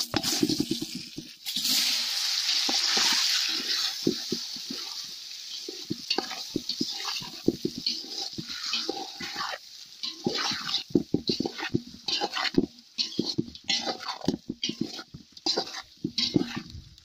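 A spoon stirring and tossing halved boiled eggs with spice paste in a steel pot, giving irregular scrapes and clinks against the metal. A steady hiss lasts a couple of seconds about one to two seconds in.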